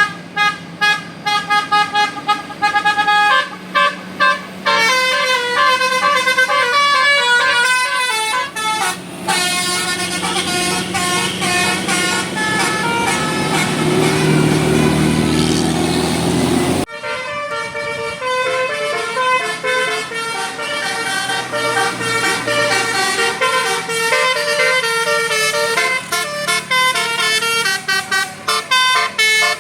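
Indonesian bus 'telolet basuri' multi-tone musical air horns playing quick runs of notes, one tune after another, with a bus engine swelling underneath near the middle. About 17 seconds in the sound cuts off abruptly and more horn tunes start straight away.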